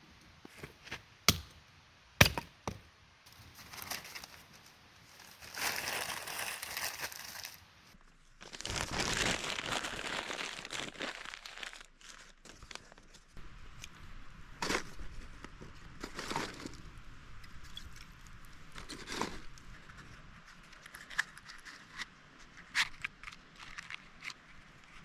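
Handling noises: scattered sharp clicks and knocks, with two longer stretches of crinkling, rustling noise a few seconds in.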